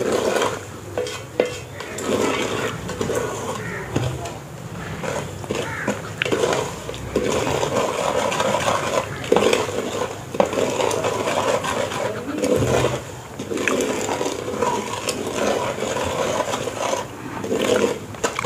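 Wooden spoon stirring and scraping roasting semolina around a metal pot, with irregular knocks of the spoon against the pot.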